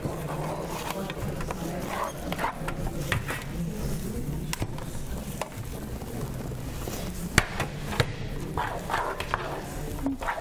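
Kitchen work noise: a spatula scraping and knocking in a skillet, with sharp clacks of utensils about seven and eight seconds in, over a steady low hum and faint voices.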